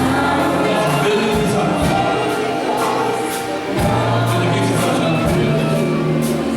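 Gospel music: a choir singing over a band with sustained bass notes and regular percussion strokes.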